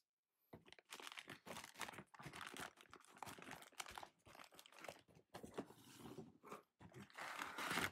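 Clear plastic air-column bubble packaging crinkling and rustling in the hands as a boxed recorder is pulled out of its cardboard box, with cardboard flaps handled at the start. Irregular crackles, loudest near the end.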